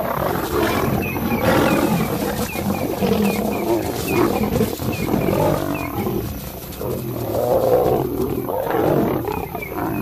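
Two lionesses and a male lion fighting, with loud, rough growls and roars running on without a break and swelling and fading.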